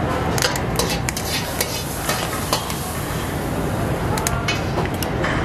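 Kitchen scissors snipping through a mud crab's legs and shell in a run of sharp, irregular clicks, over a steady background hiss.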